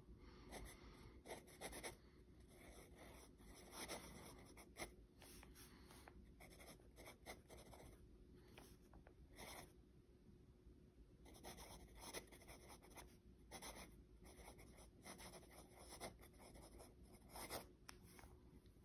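Sailor 1911 Professional Slim fountain pen nib scratching faintly across lined paper in short, irregular strokes with brief pauses as words are handwritten.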